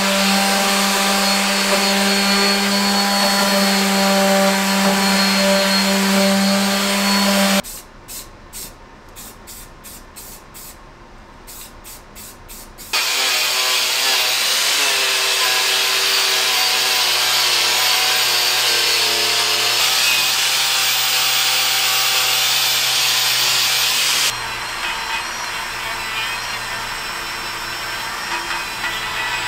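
Random orbital sander running on a cast-iron milling machine base with a steady low hum; about eight seconds in it stops, and a quieter stretch with scattered clicks follows. At about thirteen seconds an angle grinder with an abrasive disc starts grinding the cast-iron column loudly for about eleven seconds. Near the end it gives way to a quieter drill spinning a small wire brush over the column's raised cast lettering.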